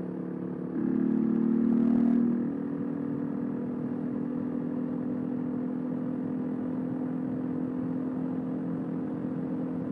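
Suzuki DR125 single-cylinder four-stroke engine running steadily while the bike is ridden, getting louder for a second or two about a second in, then settling back to an even drone.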